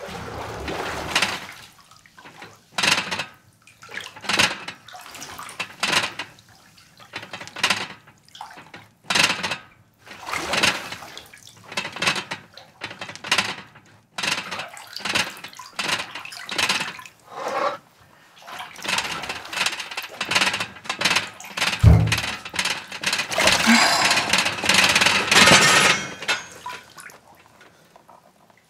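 Bathwater splashing and sloshing in a tub, in surges about every second and a half that grow busier and louder in the last third, with a single low thud about three-quarters of the way through.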